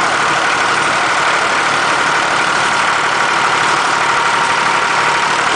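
Small red-and-grey Massey Ferguson tractor engine running steadily and loud, held at constant speed on a dynamometer test bench.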